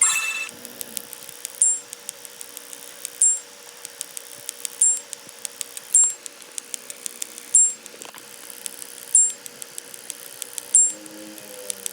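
Sped-up electronic sound effects: a short, very high two-note blip repeating about every second and a half, with rapid faint ticks between them over a steady hum. A brighter chime-like ring sounds right at the start.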